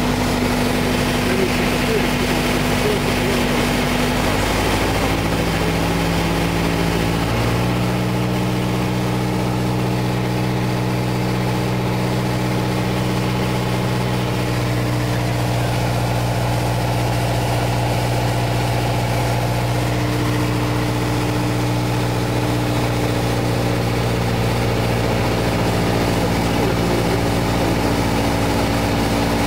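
Piper PA-28-181 Archer's four-cylinder Lycoming engine and propeller droning steadily in the cockpit on a night landing approach. The drone steps down in pitch twice, around five and seven seconds in, and then holds steady.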